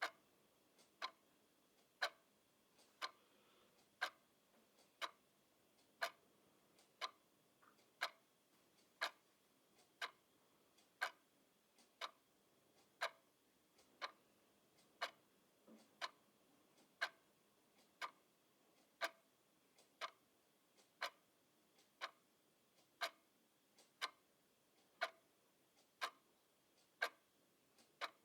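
Clock ticking steadily, one sharp tick about every second, with quiet between the ticks.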